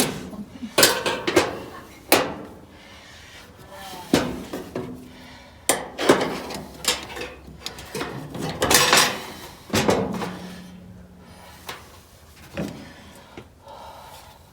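Knocks, clicks and scrapes of parts and tools being handled on an electric clothes dryer under repair: an irregular string of sharp impacts, some loud, with short scraping sounds between them.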